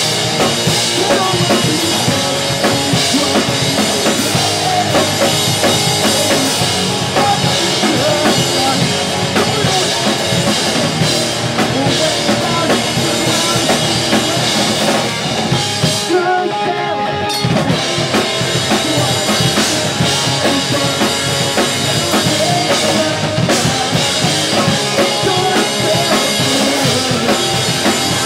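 Pop-punk band playing loud live music: drum kit with bass drum and snare, bass and electric guitars. About sixteen seconds in it stops briefly for about a second, then comes back in.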